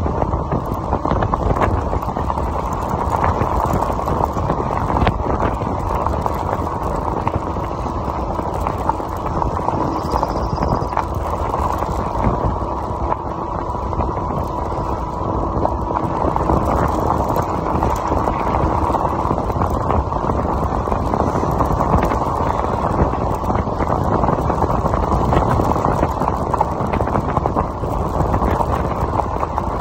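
Fat tyres of a Voltbike Yukon 750 electric bike rolling over a gravel road at riding speed, a steady rumble mixed with wind on the microphone.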